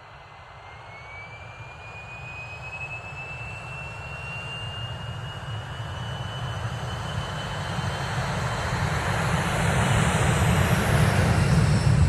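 Boeing 737 jet engines spooling up as the airliner accelerates down the runway from a standstill: a thin whine rising slowly in pitch over a rushing noise that grows steadily louder.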